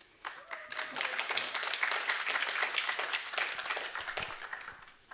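A small group of people clapping their hands in applause, beginning just after the start and dying away near the end.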